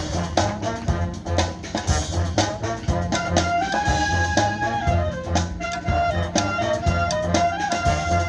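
School marching band playing: brass over a steady drum-line beat, with a long held note a little past the middle.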